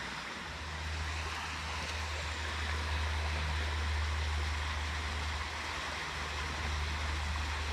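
Steady rush of creek water flowing in from a culvert, with a low rumble underneath that swells slightly after the first second.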